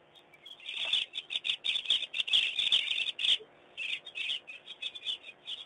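A flock of birds calling in a dense run of quick chirps, starting about a second in, with a short break a little past the middle.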